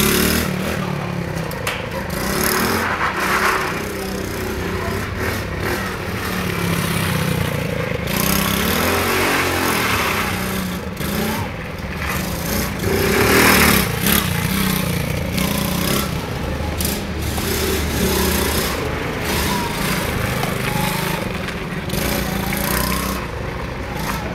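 ATV engine running and revving up and down as the quad is ridden.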